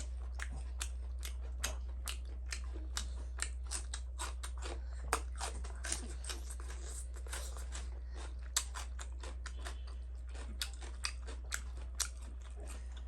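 A person chewing food close to the microphone: many short wet mouth clicks and smacks at an uneven pace, over a steady low hum.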